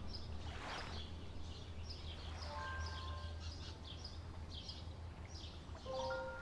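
Outdoor ambience of small birds chirping over and over in short high calls above a steady low rumble. A few faint held tones come in about two and a half seconds in and again near the end.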